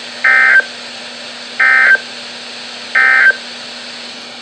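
Emergency Alert System end-of-message data signal: three short, identical digital data bursts about 1.3 seconds apart, which mark the close of the alert. They play over a steady broadcast hiss with a low hum.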